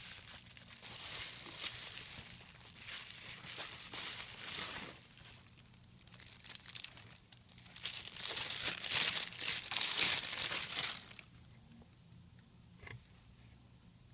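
Packaging crinkling and rustling as the Nikon 18–55 mm VR II kit lens is unwrapped, in irregular spells that are loudest about eight to eleven seconds in, then a single short click near the end.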